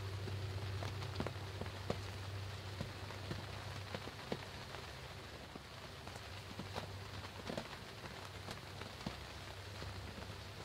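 Steady rain falling, with individual drops ticking sharply close by. A low hum runs underneath and eases about halfway through.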